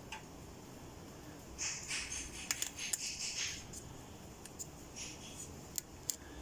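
Light rustling and scraping of hands working with tools and parts for about two seconds, then a couple of short sharp clicks near the end.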